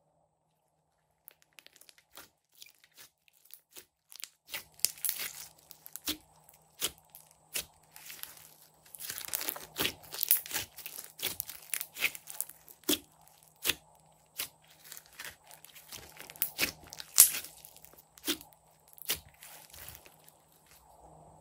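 Pink glossy slime studded with small beads being squeezed, folded and stretched by hand, giving irregular sticky clicks and pops. They start about a second in, grow denser, and there is one louder pop near the end.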